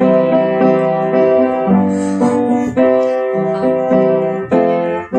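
Piano playing a short introduction before singing, a series of chords struck about twice a second.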